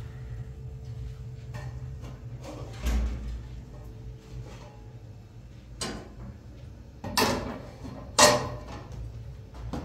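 A few short knocks or scrapes of handling, the loudest two close together past the middle, over a steady low hum.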